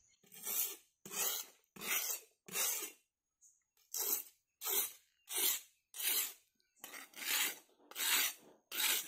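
Repeated rasping strokes, about a dozen at roughly one and a half a second, with a short pause about three seconds in.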